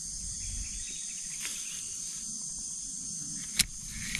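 Steady high-pitched insect chorus, with one sharp click about three and a half seconds in.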